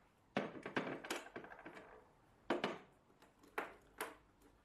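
Metal tools and parts clinking and knocking as they are set down and moved about on a steel workbench: a quick cluster of knocks in the first couple of seconds, then three more single sharp knocks.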